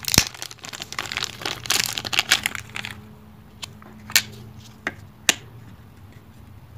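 Thin plastic wrapper crinkling and crackling as a camera battery is unwrapped by hand, for about three seconds. After that, a few separate light clicks and taps as the camera body is handled.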